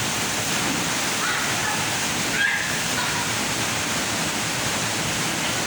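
Waterfall pouring into a pool: a steady, even rush of falling water. Faint voices come through briefly about a second in and again about halfway.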